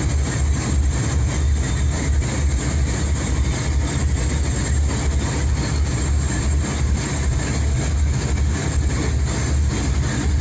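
Motorboat engine running steadily under way, a loud deep drone with a slight pulse, over the rush of water from the churning wake.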